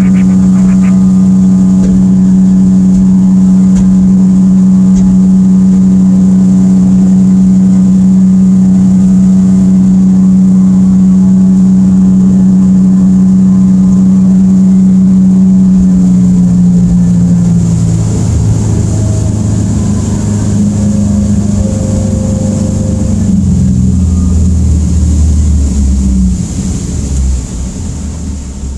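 Evinrude E-TEC 115 two-stroke outboard running steadily at speed under load, then throttled back about two-thirds of the way through, its pitch dropping and the sound falling away as the boat slows.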